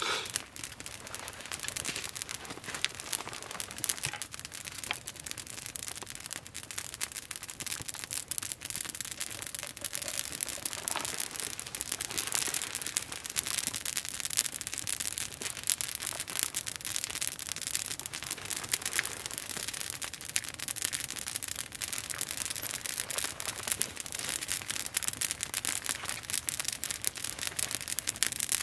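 Open wood campfire burning steadily, with a dense run of small crackles and pops.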